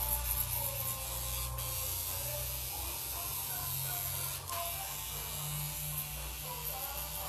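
Tattoo machine buzzing steadily against the skin while black fill is tattooed into a Maori-style design.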